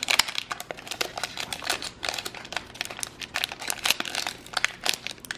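Foil wrapper of a Pokémon Hidden Fates booster pack crinkling in the hands as it is torn open: a dense run of short, sharp crackles.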